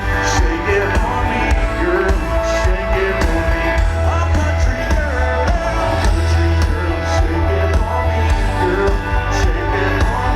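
Live country-rock band playing loud, with a heavy kick drum and bass, and bright drum or cymbal hits standing out about every two seconds.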